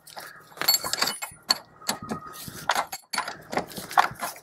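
Steel line wrench clinking on the clutch line's flare nut as it is worked and repositioned: a string of irregular sharp metallic clicks and clinks.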